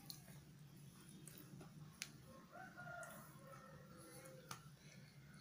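A rooster crowing faintly, one call beginning about halfway through and lasting about two seconds. A few soft clicks of a metal spoon against rice and paper food wrapping.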